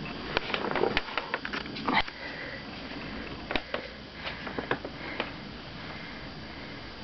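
Cat biting and chewing cat grass: crisp crunching clicks in quick runs, one in the first two seconds and another a little past the middle.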